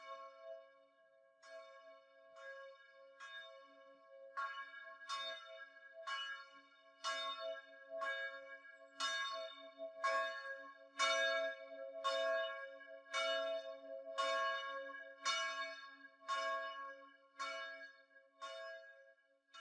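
A single church bell tolled about once a second, each strike ringing on into the next, swelling louder toward the middle and fading again near the end.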